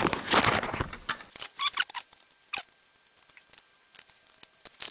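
Rustle of the camera being handled, then small metallic clicks and scrapes as a steel spring clip is worked into the upper slot of a Honda Civic's front brake caliper bracket, with a sharper click near the end.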